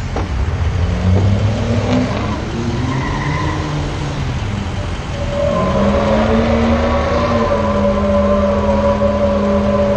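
A truck doing a burnout: the engine revs up and down, then from about halfway the tires squeal in a steady, held tone with the engine kept high.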